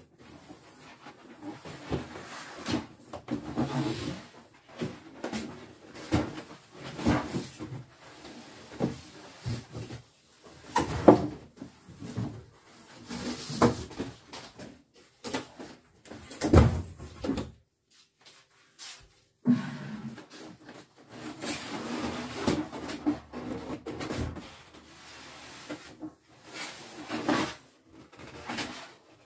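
Cardboard boxes being handled: the flaps of a large outer box opened and an inner box slid and lifted out, with rubbing, scraping and occasional sharp knocks of cardboard against the worktop. A short break of near silence comes about two-thirds through.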